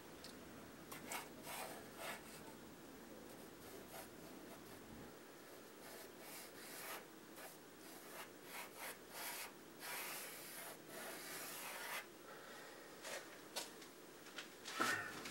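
Faint scratching and rubbing of a pencil drawing across a large sheet of paper in irregular, flowing sketch strokes, with a louder brief sound near the end.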